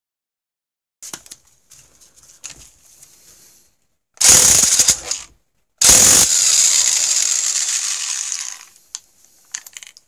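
Electric impact wrench hammering on the 22 mm flywheel nut of a Polaris Indy 600 snowmobile engine: a short loud burst about four seconds in, then a longer burst of about three seconds that slowly fades as the nut comes loose. A few light clicks and knocks of the socket being fitted come first.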